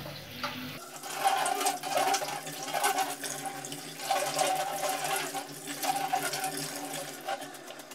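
Cold tap water running and splashing onto boiled macaroni in a metal colander and into a stainless steel sink, as the pasta is rinsed so it won't stick together.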